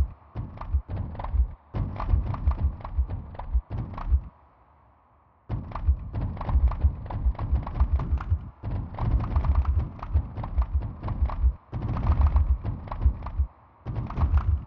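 Sonified earthquake swarm: recorded seismic waveforms sped up a thousandfold, heard as dense clusters of short, deep thuds and knocks, each one a single tremor, its pitch set by the quake's depth and its length and loudness by its magnitude. The clusters break off briefly several times, with a near-silent pause about four seconds in.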